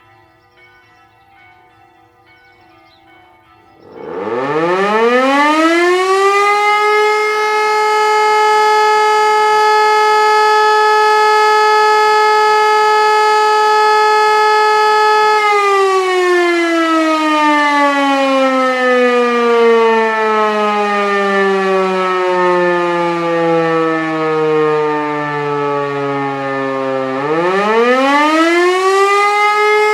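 Faint church chimes ring for the first few seconds. Then an E57 electric motor siren starts up about four seconds in and rises to a steady wail, which it holds for about ten seconds. It then winds down slowly for about twelve seconds and starts rising again near the end. This is the German 'Feueralarm' signal that calls out the volunteer fire brigade, sounded here as a test.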